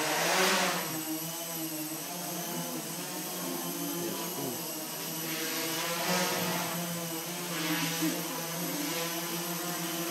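A quadcopter photo drone hovering and manoeuvring, its propellers giving a steady whirring hum whose pitch wavers as the motors adjust. A louder rush of air comes about half a second in.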